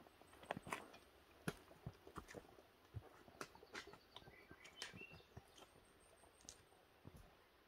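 Faint, irregular clicks and taps of hikers' boots and trekking-pole tips striking rock on a steep trail.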